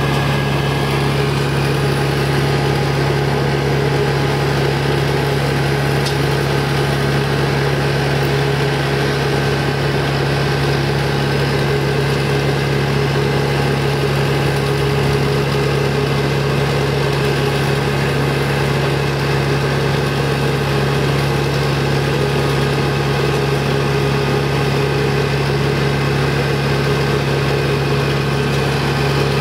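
An engine running steadily at idle: a constant low drone that holds the same speed throughout, with no revving or cutting.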